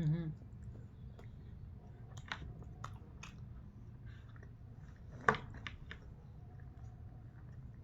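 Close-up chewing: soft mouth clicks and smacks of food being eaten, scattered every half second or so, with one louder click about five seconds in.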